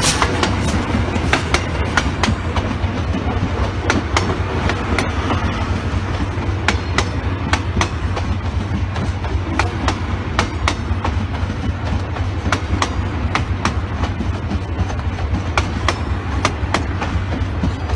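Railway passenger coaches rolling past close by, their wheels clicking irregularly, a few times a second, over rail joints, above a steady low rumble.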